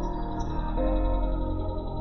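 Background music: slow ambient music with long held notes.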